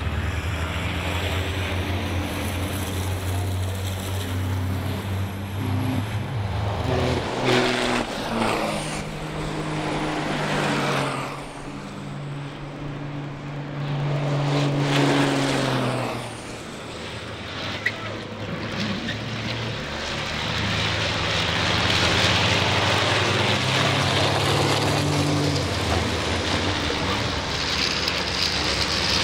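Diesel engines of racing trucks passing one after another at speed. Each pass swells and fades, and the engine pitch steps and glides up and down.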